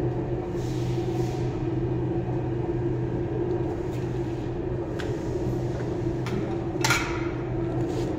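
Motor-driven profile bending machine running with a steady hum as an aluminium profile is rolled between its rollers, with a few light clicks and one sharper click about seven seconds in.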